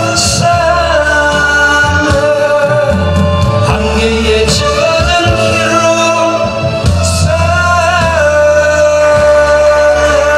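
A man singing a Korean popular song (gayo) into a microphone over musical accompaniment, holding long notes, with brief bright crashes about four and a half and seven seconds in.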